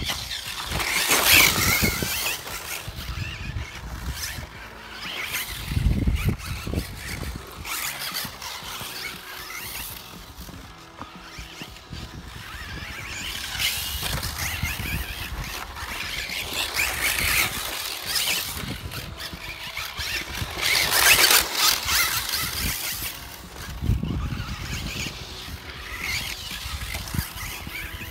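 Kyosho Optima electric 4WD RC buggy driving hard on a dirt track: repeated surges of high-pitched motor and gear whine with tyres scrabbling over dirt as it accelerates. Two heavy low thumps, about six seconds in and again near the end, are landings from jumps.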